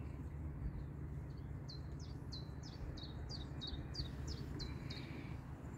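A songbird singing a run of about a dozen short, high, falling notes, about three a second, over a low steady rumble.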